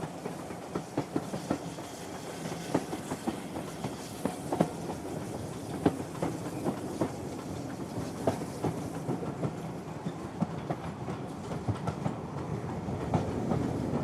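Train running at steady speed: a continuous rumble of the cars with irregular clicking and knocking of wheels over rail joints, growing slightly louder near the end.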